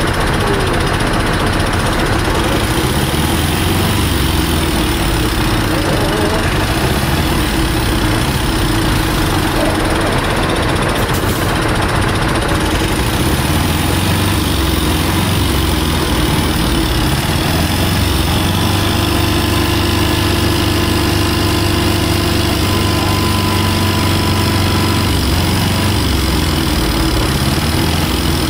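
An engine idling steadily with a low hum; a faint steady whine joins about two-thirds of the way through.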